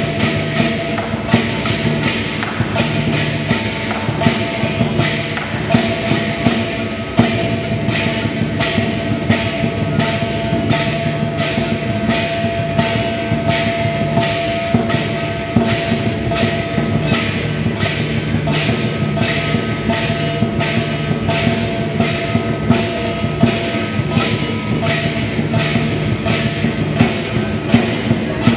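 Lion dance percussion of drum, gong and cymbals beating a steady rhythm of sharp strikes, about one and a half a second, over a ringing gong tone.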